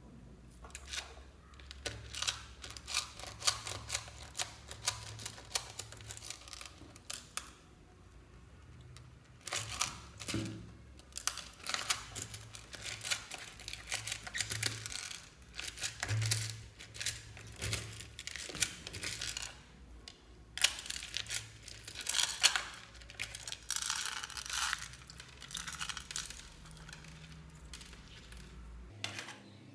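Small plastic fuse beads clicking and crackling against each other and a plastic box as slime is squished and kneaded through them by hand, in uneven bursts with short pauses.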